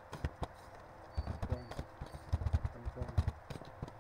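Computer keyboard typing: quick runs of keystrokes in three bursts as short words are typed, with pauses between them.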